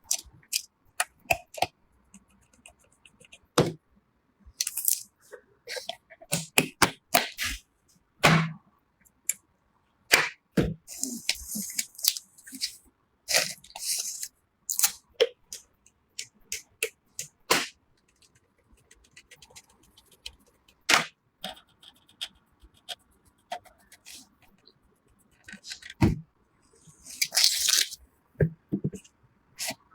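PC components being handled and fitted together during a computer build: a string of sharp plastic and metal clicks, snaps and knocks with short gaps between them, and two longer rustling stretches, one about a third of the way in and one near the end.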